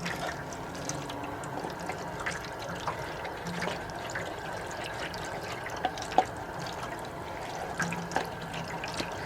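Water running from a sink tap as an oil funnel is rinsed under it, with a few light knocks and clicks of the funnel against the sink, the sharpest about six seconds in.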